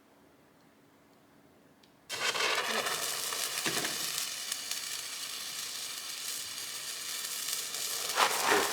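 Near silence, then about two seconds in a sudden steady sizzle sets in, like food frying in a hot pan, with a few louder pops near the end.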